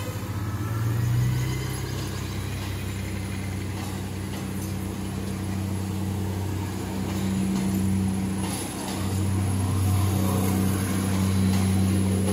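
Philippine National Railways diesel multiple unit passing, its engines running with a steady low drone.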